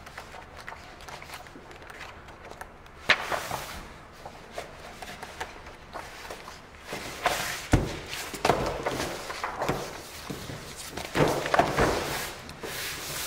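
Pages of a picture book being turned and handled: rustling, with a sharp knock about three seconds in and a dull thud nearly eight seconds in.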